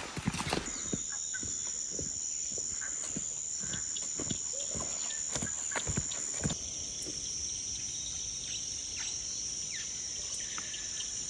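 A steady high-pitched insect drone sets in under a second in, with scattered clicks and knocks over the first six seconds.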